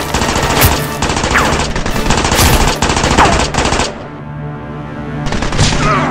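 Automatic gunfire sound effects in rapid bursts over background music: a long stream of shots until about four seconds in, a short lull, then a shorter burst near the end. Two short falling whistles cut through the firing.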